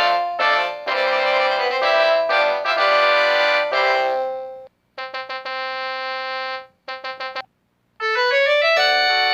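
A mobile phone's polyphonic ringtones play in turn. One synth melody stops about four and a half seconds in, a short tone pattern of quick stuttered notes around a held note follows, and a new melody starts near the end.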